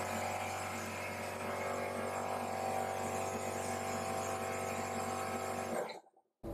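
Air compressor for the screen-laminating pressure chamber running with a steady hum, cutting off near the end.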